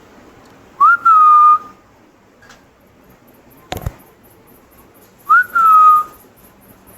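Two identical whistles, each a quick upward flick followed by a long held note that sinks slightly in pitch, with a single sharp knock between them.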